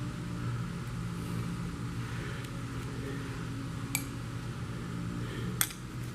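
Two sharp clicks, about four and five and a half seconds in, from engine parts being handled on the bench, over a steady low hum.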